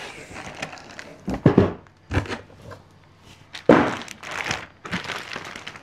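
Cardboard box and packing material being opened and handled: irregular thunks with rustling and crinkling, the loudest cluster about four seconds in.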